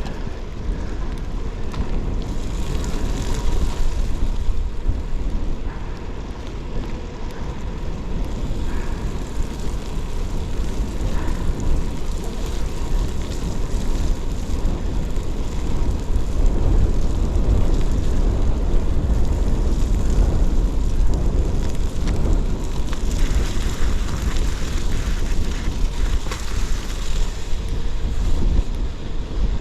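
Wind rushing over a camera microphone on a moving gravel bike, with the tyres rolling over snowy, icy ground. It gets louder and brighter in the second half.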